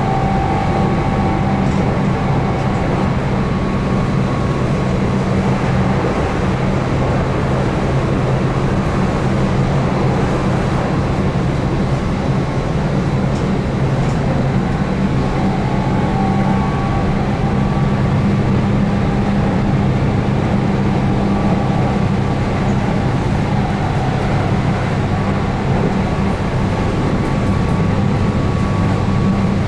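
Keihan 8000 series electric train running at steady speed, heard from on board: the steady hum of its DC traction motors under field-added excitation control over the rumble of wheels on rail.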